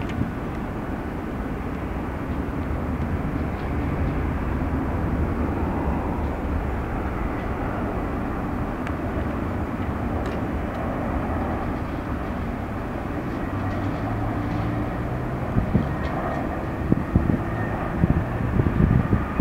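Steady low jet-engine rumble of a four-engine Boeing 747-400 at takeoff thrust on its takeoff roll, with a run of sharp low thumps over the last few seconds.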